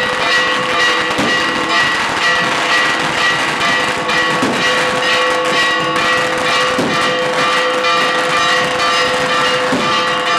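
Church bells pealing continuously, their tones ringing on without a break. Short sharp knocks sound throughout.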